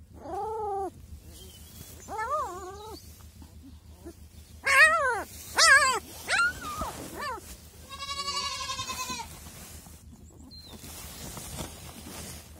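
Newborn Kangal puppies, about a week old, crying: a string of about six high, wavering cries that rise and fall in pitch, the loudest two around the middle and a longer, quavering cry a little later.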